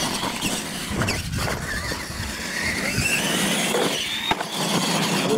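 Two electric R/C monster trucks racing flat out on dirt: high motor and gear whine climbing in pitch as they speed up, over tyres churning the dirt. A few sharp knocks come as they land off the jumps.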